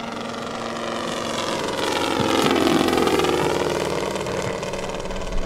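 Saito FG-73R5 five-cylinder four-stroke gasoline radial engine of a large radio-controlled Zero model running in a flypast. It grows louder to a peak about halfway through, and its note drops as the plane passes.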